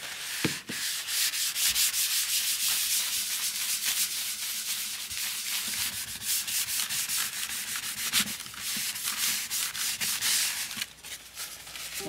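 A cloth rubbed briskly back and forth over an etched copper printing plate, a high, hissing rubbing made of many quick strokes that eases off near the end.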